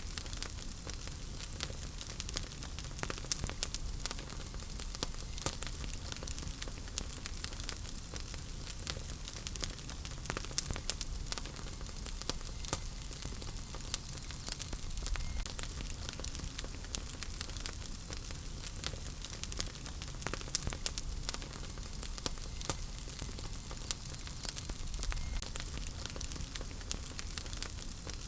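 Wood fire burning in a fireplace: irregular sharp crackles and pops over a steady hiss and low rumble of the flames.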